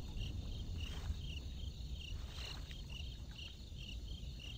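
Crickets chirping in a steady rhythm, about three short chirps a second, over a low background rumble.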